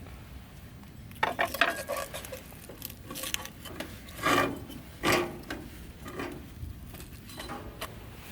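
Cookware and utensils clinking and knocking: a cluster of small clicks about a second in, then two louder clanks around four and five seconds in, with lighter taps between.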